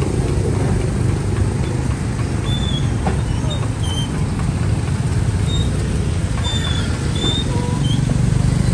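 Steady low rumble of street traffic, with short high chirps coming and going above it.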